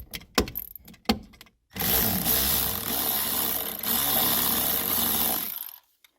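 A few light clicks, then a handheld power tool with a 10 mm socket runs steadily for about four seconds and cuts off suddenly, spinning the nut off the battery terminal.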